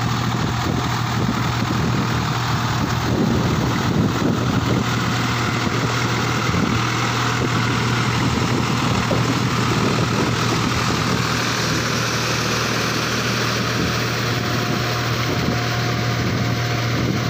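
New Holland 4710 tractor's diesel engine running steadily under load, pulling a rotavator on cage wheels through a flooded paddy field. The churning of mud and water by the rotavator and wheels runs under the engine's steady hum.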